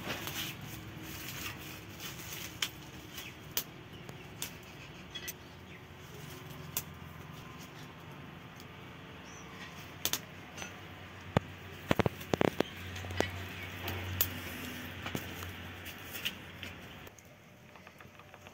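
Wood fire crackling in a clay mud stove, with sharp, irregular pops as the wood burns and corn cobs roast in the embers; a quick cluster of louder pops comes about twelve seconds in.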